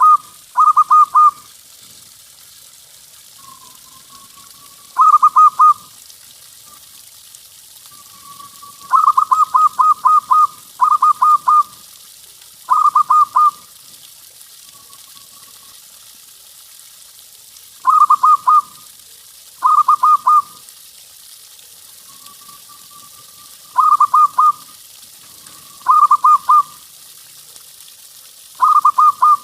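Zebra dove (perkutut) cooing: short bursts of quick, evenly spaced staccato coos every few seconds, about ten bursts in all, with soft drawn-out rising notes between them.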